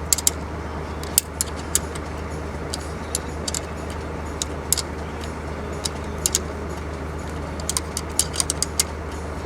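Sharp metallic clicks and clinks of hand tools tightening a nut on a bus air-horn mounting, coming irregularly and in small clusters, over a steady low hum.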